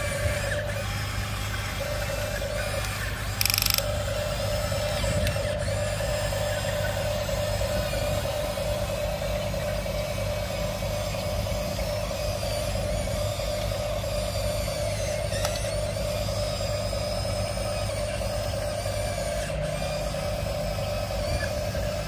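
Electric motors and gear trains of a radio-controlled toy excavator whining steadily as its arm is worked, stopping and starting a few times in the first few seconds. A short hiss about three and a half seconds in.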